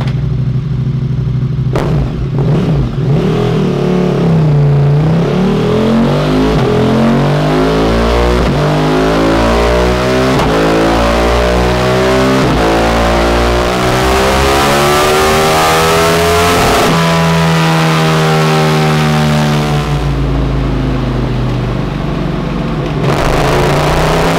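KTM Super Duke 1290 R's 1301 cc V-twin with a full titanium Akrapovič exhaust on a rolling-road dynamometer, doing a full-throttle power run. It runs steadily at first, then about four seconds in the revs climb smoothly for some twelve seconds, cut off sharply and fall away, then settle to a steady run near the end. This is a test pull to measure the first ECU remap.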